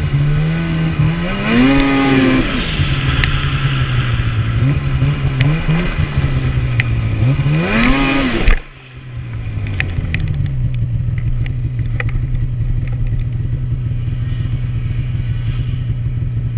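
Polaris Rush 800 snowmobile's two-stroke twin engine running under way, rising and falling in pitch with the throttle twice. The throttle is chopped about halfway through, and the engine then settles into steady, lower running.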